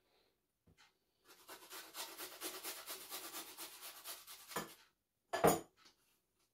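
A garlic clove being rubbed on a small hand grater: a run of quick rasping strokes, several a second, for about three and a half seconds. It ends with one loud knock about five and a half seconds in.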